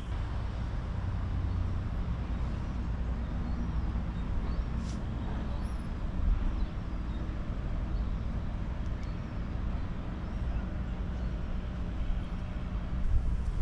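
Street traffic: a vehicle engine running steadily with a low, even rumble.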